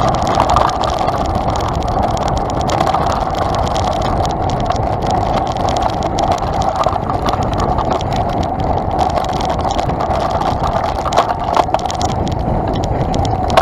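Mountain bike rolling fast over a bumpy dirt forest trail, heard through a bike-mounted action camera: a steady rumble of tyres and wind with frequent small knocks and rattles from the jolting ride.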